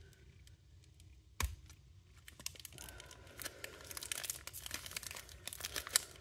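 Foil trading-card pack being torn open at its crimped seam: crinkling and tearing, with a sharp crack about a second and a half in and denser crackling from about three seconds on.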